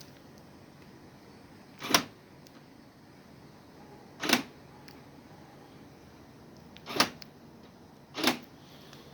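Opel/Vauxhall Astra central door locks clunking four times, about two, four, seven and eight seconds in, as the remote key fob locks and unlocks the car: the repaired remote is working.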